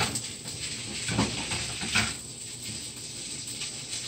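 Fried rice with shrimp sizzling in a frying pan, with a few scrapes and knocks of a utensil stirring it against the pan.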